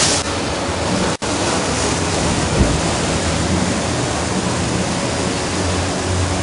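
Water rushing through a log-flume ride channel: a boat's splash through the whitewater at the start, then steady flowing water. There is a momentary break about a second in.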